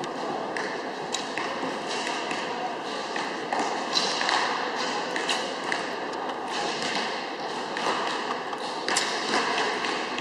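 Recurve bows being shot along a busy indoor archery line: scattered sharp clicks, taps and thuds, a dozen or so irregularly spaced, over a steady murmur of voices in a large sports hall.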